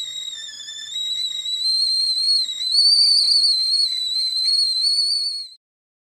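Tea kettle whistling at the boil: one high, steady whistle that wavers slightly in pitch, rises a little about halfway, and cuts off suddenly near the end.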